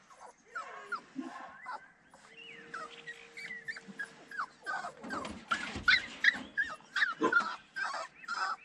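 Puppy whimpering: a run of short, high cries, each sliding down in pitch, coming faster and louder in the second half.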